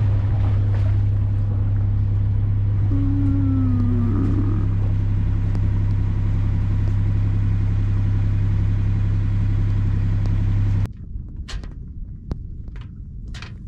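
Sailboat's engine running steadily under way, a constant low drone. About eleven seconds in it cuts off abruptly to a much quieter stretch with a few light knocks.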